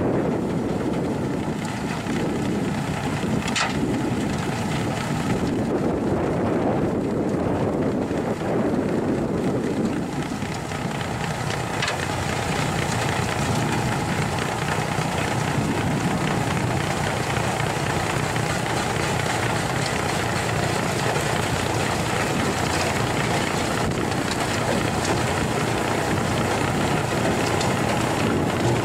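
Truck-mounted rotary snow blower running under load, its engine working as the spinning auger chews through deep snow and blows it out the chute, making a steady rushing, churning noise.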